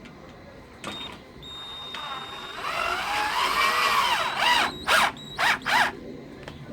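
Cordless drill-driver running a screw into the fly-screen door's frame: the motor whines, its pitch rising and sagging as the screw goes in, then several short trigger bursts to seat it.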